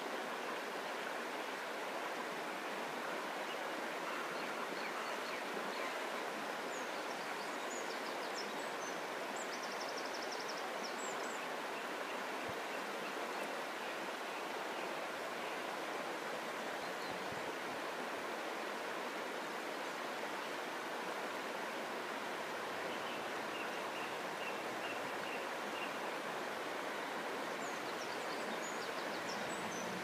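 Shallow river running steadily over a stony bed and around stepping stones, a constant rushing. Faint bird calls come through now and then: a few high chirps and a short trill about a third of the way in, a short run of repeated notes later on, and more chirps near the end.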